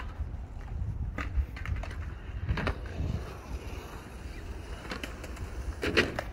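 Skateboards on the skatepark's concrete, with several sharp clacks of boards hitting the ground, the loudest near the end, over a low steady rumble.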